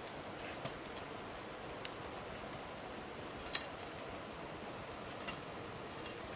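Woven bamboo basket handled and slung onto the back: a handful of light clicks and taps of the wickerwork, the sharpest about halfway through, over a steady faint outdoor hiss.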